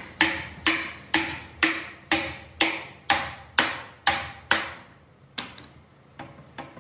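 Hammer blows on metal, steady at about two a second, each with a short ring. Ten blows, then one more after a short gap, then a few light taps near the end.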